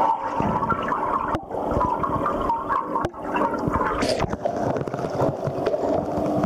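A Dobermann paddling in a pool, heard through an underwater microphone: a steady muffled churning and gurgling of water. There are a couple of sharp clicks, and a short hiss about four seconds in.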